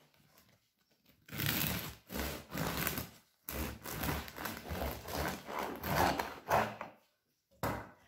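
A long knife sawing back and forth through the crunchy crust of a sourdough loaf on a wooden cutting board. The run of crunching strokes starts about a second in and stops shortly before the end.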